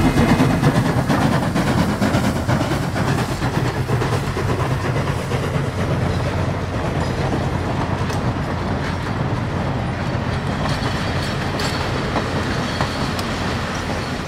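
Passenger coaches of a steam-hauled train rolling past, wheels clicking over the rail joints in a steady rumble that eases slightly toward the end.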